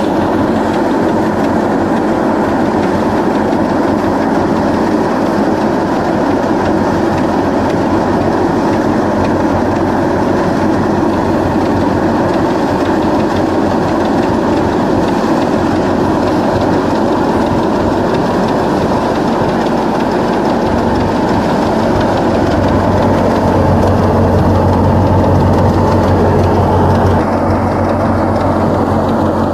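Tractor-driven wheat thresher running steadily: a loud, dense mechanical clatter and whir with the tractor engine's drone underneath. The low hum swells for a few seconds near the end.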